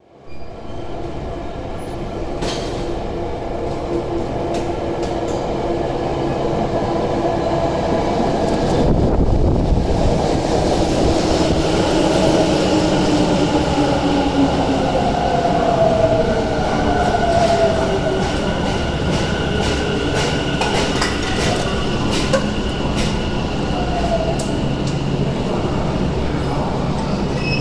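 Tokyo Metro 10000 series subway train pulling into the station and braking to a stop. The rumble of the wheels on the rails grows louder, and the motor whine glides down in pitch as the train slows. There is a thin high squeal and a few clicks near the end.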